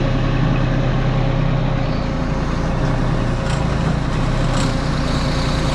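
Compact tracked loader's diesel engine running steadily at a constant speed, with a faint steady whine above the engine hum.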